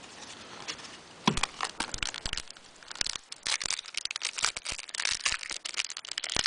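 Crinkling and tearing of 2008 Upper Deck Heroes card-pack wrappers as a pack is opened and the cards handled, in quick crackly rustles that grow busier about three seconds in.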